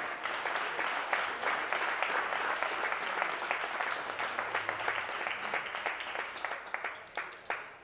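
Audience applauding, thinning out to a few last separate claps near the end.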